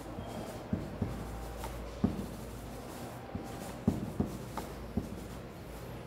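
Crayon scribbling on paper laid on a hard table, with irregular short knocks as the strokes hit the surface, over a low steady hum.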